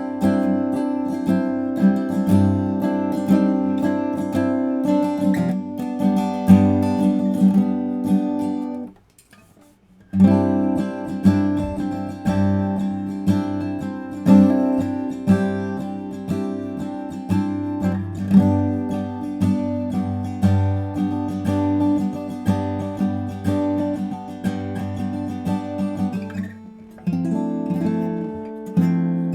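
Guild JF-30 jumbo flattop acoustic guitar being played solo, notes and strums ringing, with a brief stop about a third of the way in before the playing resumes.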